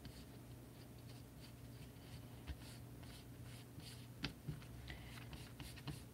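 Faint, scratchy rubbing of a small sponge applicator working blue eyeshadow along a strip of craft foam, in short repeated strokes, with a sharper tap or two a little after four seconds. A steady low hum sits underneath.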